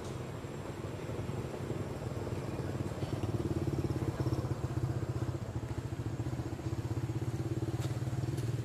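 An engine running steadily, a low pulsing rumble that grows a little louder about three seconds in.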